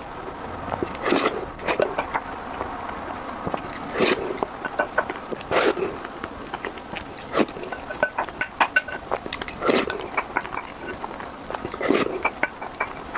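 Close-up eating sounds: wet chewing and slurping of rice in sauce, with a wooden spoon scraping and knocking against a ceramic bowl. The sounds come as irregular short bursts every second or two.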